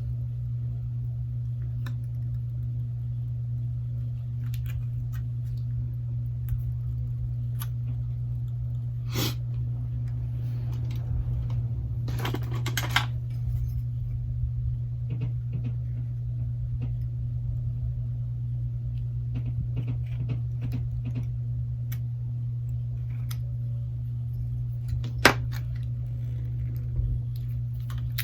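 Scattered light clicks and taps of small tools and phone parts being handled on a repair bench, with a brief scrape about halfway through, over a steady low hum.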